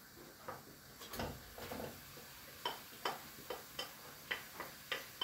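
A metal spoon or spatula clacking against a cast-iron kazan while stirring frying meat and onion: a series of light, sharp knocks, roughly two a second, starting about a second in.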